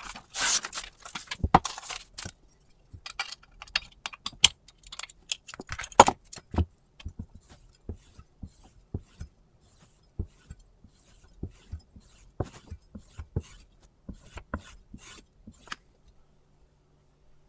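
Paper rustling, then a long run of quick metallic clicks and knocks as a chef's knife and its clamp-on adjustable angle guide are handled, unclamped and set down on a stone and table. The clicking dies away about a second before the end.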